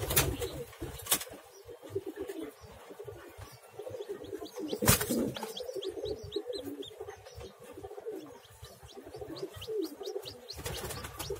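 Pigeons cooing, with newly hatched chicken chicks peeping faintly from about halfway through. A few sharp knocks, the loudest about five seconds in.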